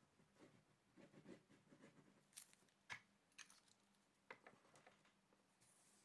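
Near silence with faint handling sounds: a light scratching as an adhesive tape runner is drawn along a paper strip, then a few soft clicks and taps as things are set down on a craft mat.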